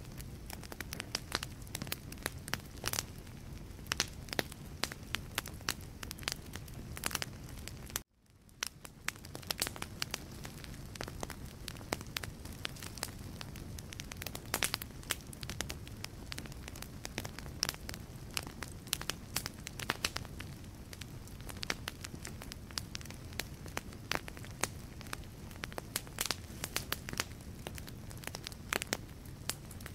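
Wood fire crackling in a fireplace: many sharp pops and snaps of burning logs over a steady low rush of flame. About eight seconds in the sound drops out abruptly and fades back in over about a second.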